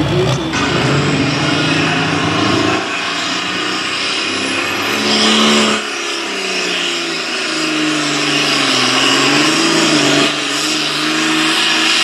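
Diesel engine of a super farm class pulling tractor running hard under load during a pull. The engine pitch rises and falls, and the sound changes abruptly a few times between short clips.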